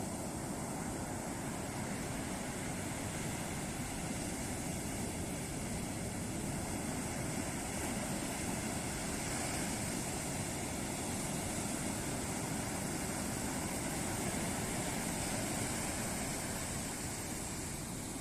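Ocean waves breaking on the shore in a continuous wash of surf, swelling a little in loudness around the middle and again later on.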